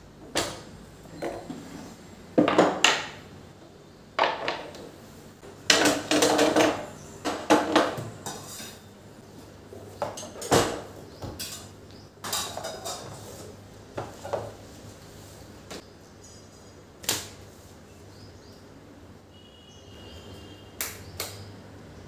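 Irregular clinks and knocks of kitchen things being handled and set down on a stone countertop during wiping, such as glass oil bottles and the burner parts of a glass-top gas stove, with the busiest clatter in the first third.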